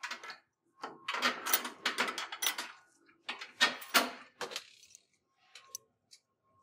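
Metal clattering and clinking as a steel conveyor crossbeam and its bolt hardware are handled and fitted: two spells of quick rattling over about four seconds, then a few faint ticks.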